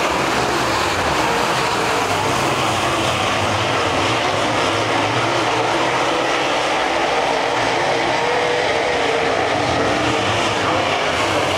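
A field of dirt late model race cars running flat out around a dirt oval: their V8 engines blend into one steady, dense drone, with several engine notes wavering up and down as cars pass.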